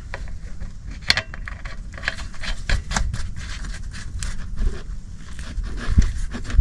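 Scraping, rubbing and clicking as a hand loosens the drain plug on a tractor's front final drive housing, with gear oil dripping into a plastic drain pan.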